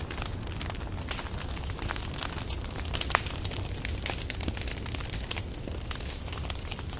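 Fire burning with a steady low rumble and frequent irregular sharp crackles and pops.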